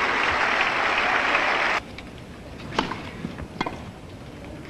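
Tennis crowd applauding, cut off abruptly about two seconds in. A few sharp knocks of a tennis ball follow, quieter and a second or so apart.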